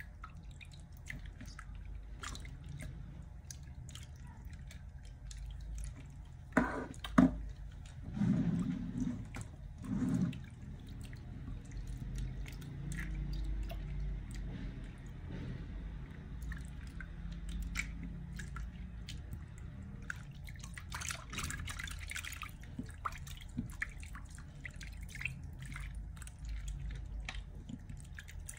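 A hand swishing and splashing through water in a glass bowl, with drips and small splashes throughout. A couple of louder knocks and thuds come about seven to ten seconds in.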